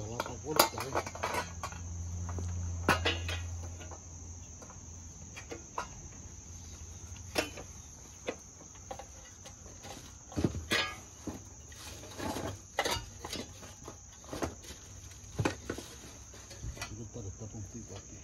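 Scattered clicks and clinks of hand tools on metal parts during engine work, over a steady high-pitched insect drone. A low hum runs for the first few seconds.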